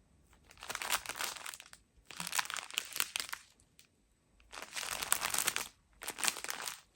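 Plastic packaging crinkling as it is handled, in four separate bursts of about a second each.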